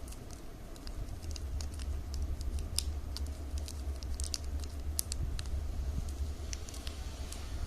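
Light, irregular crinkles and clicks of folded plastic milk-powder-bag strips being handled and woven, over a steady low hum.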